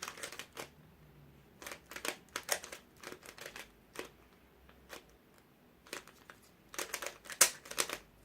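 Plastic clicking and clacking of a large 67 mm YuXin Treasure Chest 3x3 cube being turned by hand, in quick runs of turns separated by short pauses, busiest near the end.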